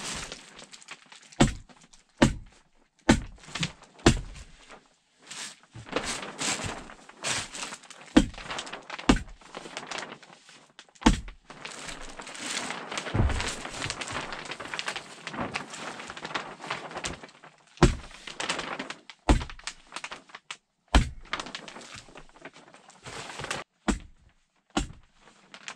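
Plastic vapor-barrier sheeting rustling and crinkling as it is pulled snug over roof rafters, with a dozen or so sharp knocks at irregular intervals as the sheet is fastened to the rafters.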